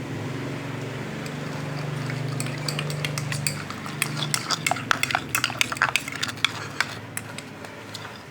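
A utensil stirring slime mixture in a bowl, clinking and scraping against its sides in quick irregular clicks that start about two seconds in; a low steady hum runs under the first half.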